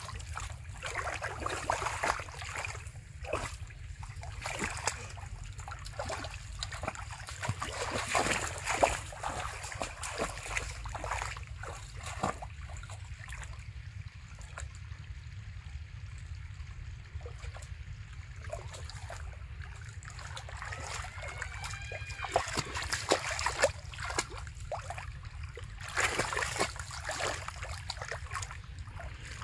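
Shallow muddy water splashing and sloshing as a child wades and grabs at fish with his bare hands. The splashes come in irregular bursts, with a quieter spell in the middle.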